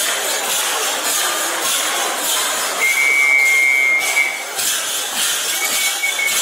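Rhythmic clattering, hissing noise of a dance performance, with a steady high whistle held for about a second and a half near the middle.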